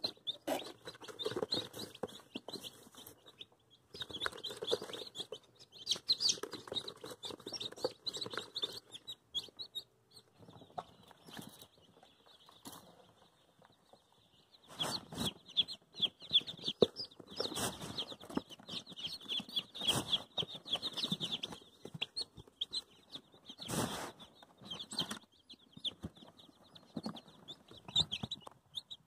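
Many newly hatched chicks peeping in a dense chorus of high chirps, which dies down for a few seconds around the middle. Several sharp knocks and rustles come from the chicks being handled and moved.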